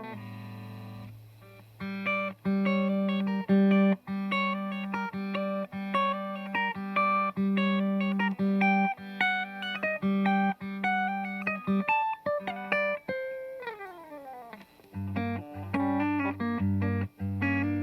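Electric guitar with a clean tone, played on the rear DiMarzio P90 Super Distortion pickup of a Yamaha Revstar: a picked line of repeated low notes under shifting higher notes, a long slide down in pitch about 13 seconds in, then lower notes.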